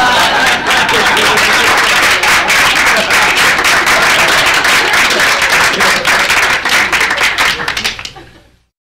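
People clapping their hands fast and laughing, a dense run of claps that stops abruptly near the end.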